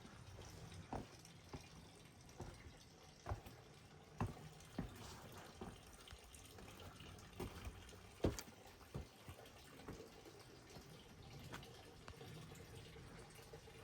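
Rain falling steadily, with scattered sharp drips and taps of water at irregular intervals, the loudest a little past the middle.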